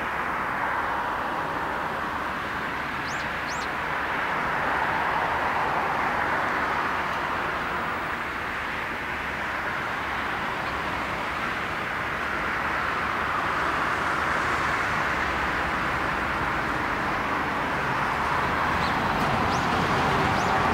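Boeing 747-400's four Pratt & Whitney PW4056 turbofans running at low power as the jumbo jet rolls out and slows on the runway after landing. A steady jet rush that swells and eases slightly.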